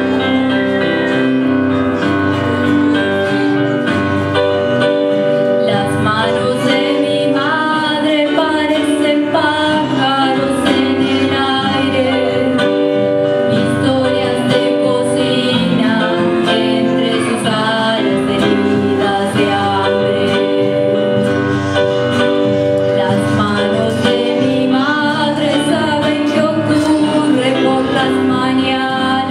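A woman singing a song live into a microphone, accompanied by acoustic guitar and electronic keyboard.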